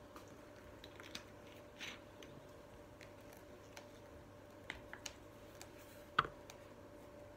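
Light scattered clicks and taps of shape pieces being handled and set into a pattern board, over a faint steady hum. About six seconds in comes a single louder knock as a plastic water bottle is put down on the table.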